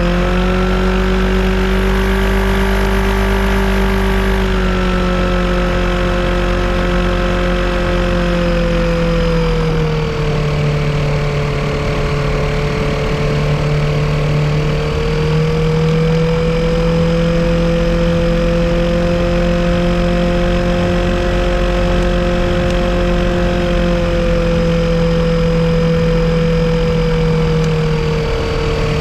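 Yamaha Apex four-cylinder engine on a Kitfox airplane running steadily at a moderate speed while a misfire is being tracked down. Its pitch eases down slightly twice, climbs back, and dips again near the end.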